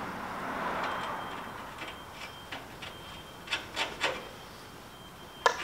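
Hands handling small steel hardware on a car's suspension: soft rubbing for the first couple of seconds, then a scattering of light metallic clicks and taps as a washer and nut are fitted onto a bolt.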